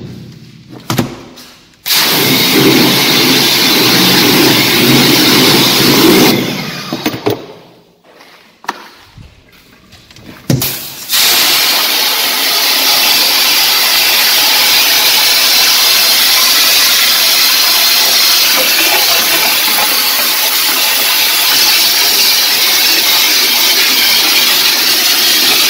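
Water spraying hard from a hose nozzle onto a screen-printing screen, washing the unexposed emulsion out of the stencil. The spray starts about two seconds in and stops for a few seconds around the middle, with a few knocks. It then comes back and runs on steadily.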